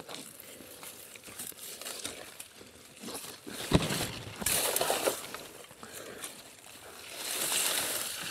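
Rustling and crinkling of aronia bushes being handled during hand-picking of the berries, with a sharp knock about three and a half seconds in and louder rustling near the end.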